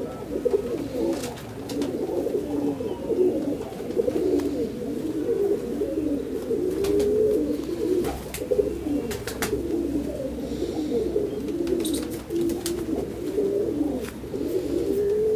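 Many domestic pigeons cooing together, a continuous chorus of overlapping low coos, with a few sharp clicks scattered through it.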